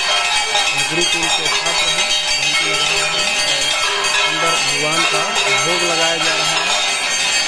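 Several hanging brass temple bells rung continuously by hand during aarti, a dense, unbroken clangour, over voices singing the aarti hymn.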